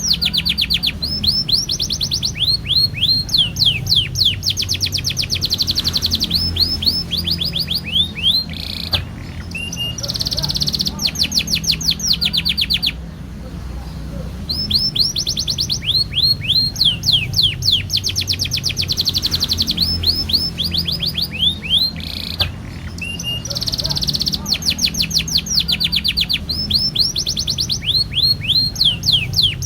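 Canary singing long rolling trills: rapid runs of repeated high notes strung into long phrases, broken by a few brief pauses, over a steady low hum.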